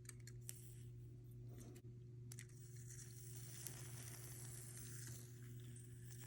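A metal spring heated to about 1000 degrees, ticking and crackling with a fine sizzle that swells in the middle, over a steady low hum.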